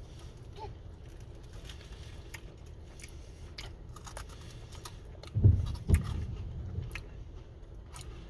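A man chewing a soft, marinated tofu beef cake snack with his mouth closed: small wet mouth clicks over a steady low hum. A couple of dull low thumps about five and a half seconds in.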